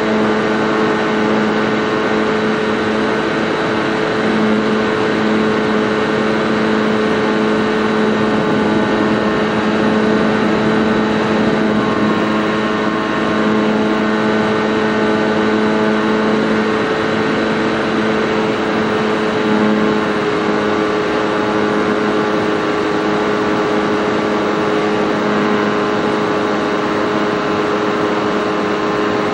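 Model airplane's motor and propeller running at a steady pitch in flight, heard up close from on board.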